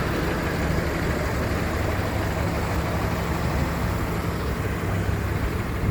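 Street traffic at an intersection: a motor vehicle engine idling with a steady low hum under the general road noise.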